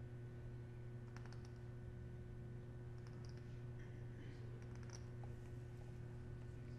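Faint scattered clicking of poker chips being handled at the table, over a steady low hum.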